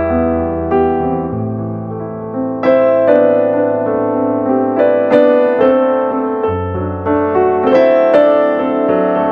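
Soft background piano music: gentle, slow chords with notes struck about every half second over sustained low bass notes.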